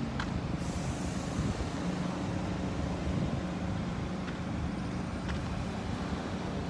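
Steady motor vehicle engine and road noise with a low, even hum.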